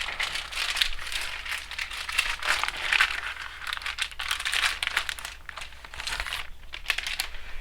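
Plastic packaging crinkling and rustling as a replacement laptop LCD screen is unwrapped, in irregular handling with a brief pause a little after six seconds.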